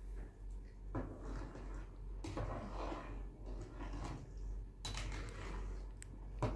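Metal ladle stirring a large aluminium pot on a gas stove, scraping and clinking against the inside of the pot in irregular strokes, with a sharp clink near the end.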